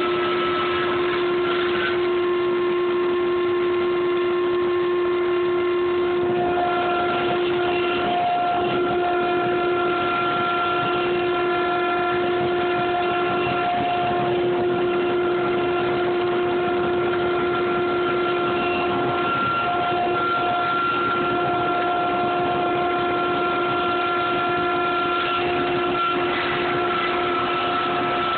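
Table saw and power feeder running steadily while ripping a board. The sound is a continuous machine whine with several held tones, whose pitch shifts slightly about two and six seconds in.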